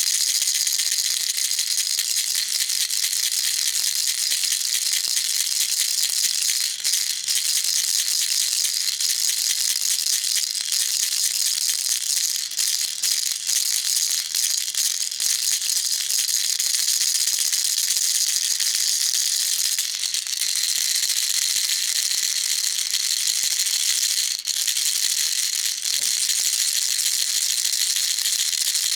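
Baby rattle shaken continuously: a dense, steady high-pitched rattle of small beads inside, with a few brief dips.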